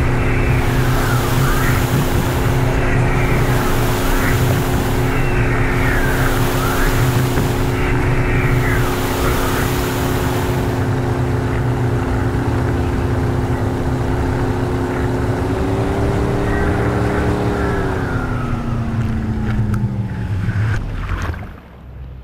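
Tow boat engine droning steadily under the rush of wind and water, with the slalom ski's spray hissing in surges about every two and a half seconds as it carves each turn. Later the hiss eases, and near the end the engine note slides down as the boat throttles back, then the sound drops away.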